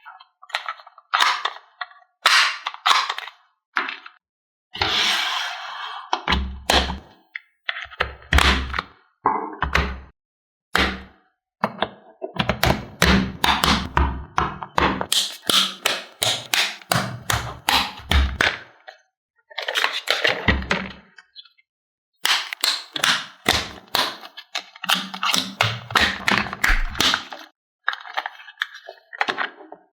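Diecast toy cars and plastic playset pieces being handled: a long series of sharp clicks, knocks and thunks, often in quick rattling runs, with a few short pauses.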